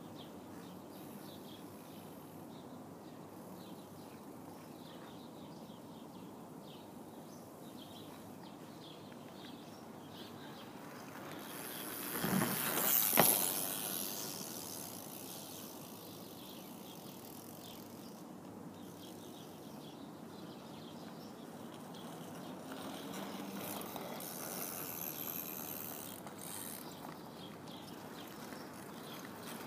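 Mini BMX rolling with its freewheel hub ticking. It passes close about twelve seconds in with a sharp knock at its loudest, and passes again more faintly around twenty-four seconds.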